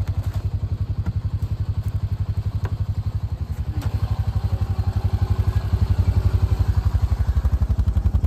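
An engine running steadily with a low, even pulse, growing a little louder about halfway through.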